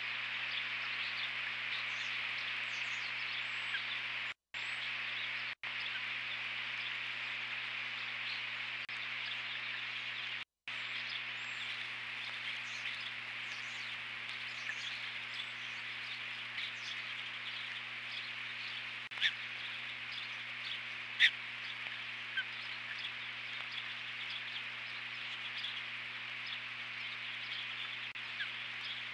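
Steady rain hissing on an outdoor nest camera's microphone over a low electrical hum. Faint high bird chirps come now and then, and a few sharp drip taps in the second half. The sound cuts out briefly twice about four to six seconds in, and once about ten seconds in.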